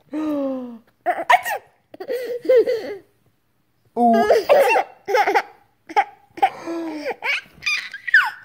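Baby laughing and giggling in short bursts, with a pause of about a second partway through.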